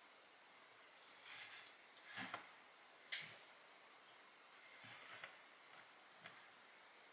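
About six short scraping sounds at uneven intervals, the longest about half a second.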